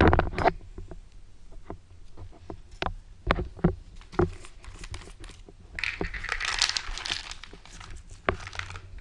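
Crinkling and tearing of the wrapper on a roll of Tums tablets, amid scattered sharp clicks and taps, with a denser rustling stretch of about a second and a half some six seconds in.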